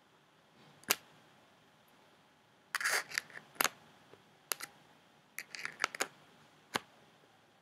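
Irregular sharp clicks and taps of small objects being handled at a desk close to the microphone, about a dozen in all. There is a short scraping rustle about three seconds in and a quick run of clicks near six seconds.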